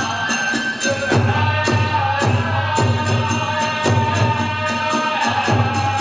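Kagura festival music: a large taiko drum beating a steady rhythm under clashing hand cymbals and a held flute melody.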